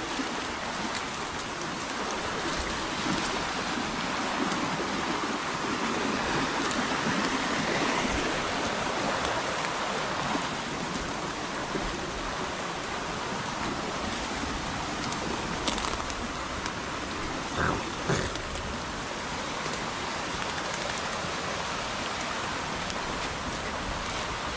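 A steady rush of water from a rain-swollen, flooded creek, mixed with heavy rain falling. Two brief knocks come about three-quarters of the way through.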